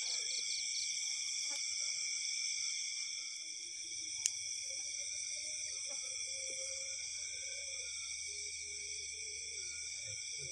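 Night chorus of crickets and other insects: several steady, pulsing trills at different high pitches. A single sharp click about four seconds in.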